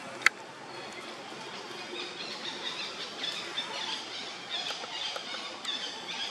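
Monkeys squealing in many short, high-pitched calls that rise and fall, getting busier from about two seconds in. A single sharp click near the start is the loudest moment.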